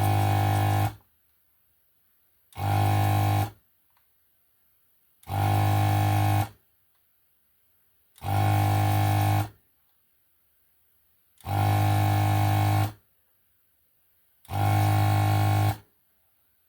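Vacuum pump of a desoldering station buzzing in six short bursts of about a second each, roughly every three seconds, starting and stopping sharply as the trigger is pressed to suck solder off each pin in turn.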